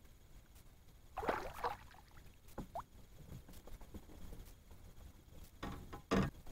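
Light handling noises in a kayak while a small fish is unhooked: scattered small knocks and clicks, with a short louder scuffle about a second in.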